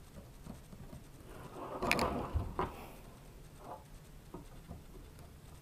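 Light handling noise as a small RC helicopter is turned over on a desk: a couple of sharp clicks and a brief rustle about two seconds in, then a few faint ticks.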